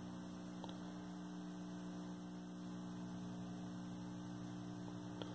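Steady mains hum from a 1973 Admiral 12-inch hybrid tube and solid-state colour TV, heard through the set's speaker as an unchanging low buzz with several even overtones. The owner says the hum grows louder the longer the set is on, and he is concerned about it.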